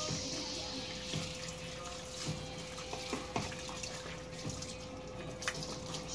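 Water running and splashing as a small dog is washed by hand: a stream of running water fades out within the first second, followed by scattered splashes and small knocks from scrubbing and handling in the basin.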